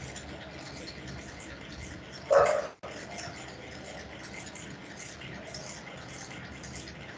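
A dog barks once, about two seconds in, over a steady background hiss.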